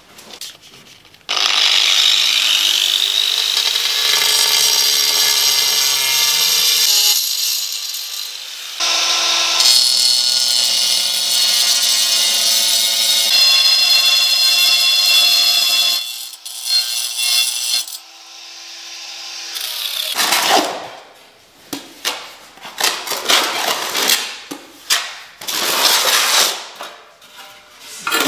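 Handheld angle grinder spinning up and cutting a ceramic floor tile in two long runs, then running free briefly before it stops. After that come a series of short, irregular scraping strokes: a notched trowel spreading tile adhesive.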